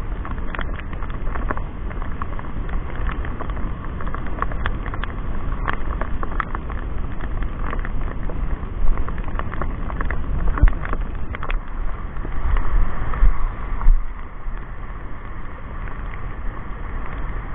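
Wind buffeting the microphone over small waves washing onto a pebbly shore, with scattered short clicks and taps.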